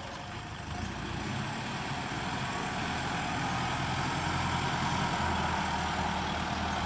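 Kubota L50-series turbo diesel tractor engine running steadily while the tractor pushes soil with its front blade. It grows slowly louder as the tractor comes closer.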